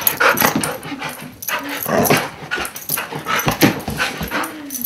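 A dog vocalizing excitedly: a rapid run of short yips and barks, several a second, some sliding up and down in pitch.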